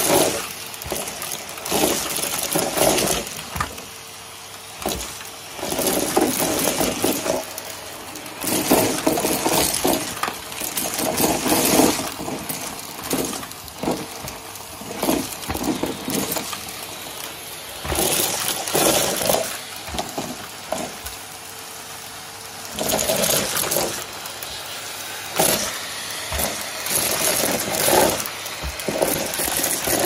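Numatic Hetty tub vacuum cleaner running steadily while its floor tool sucks pistachio shells and small paper squares off carpet. The debris clatters and crunches up the hose in irregular bursts, with quieter stretches between them where only the motor's hum is heard.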